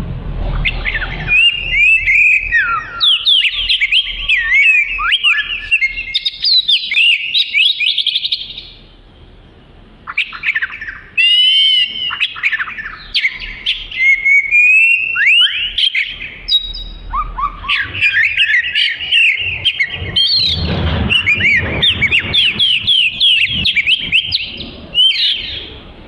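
Oriental magpie-robin singing a long run of quick, varied whistles and trills, breaking off for about two seconds a third of the way in before starting again.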